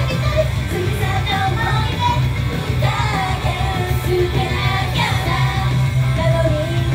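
Japanese idol group singing live over loud, heavy rock-style band music with strong bass.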